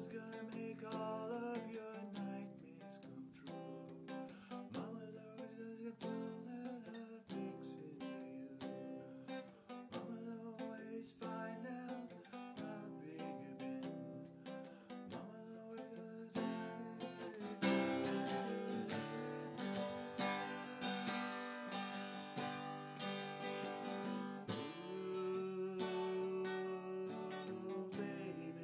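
Acoustic guitar strummed steadily, with a harmonica in a neck rack played over it. The music gets louder and brighter about two-thirds of the way in.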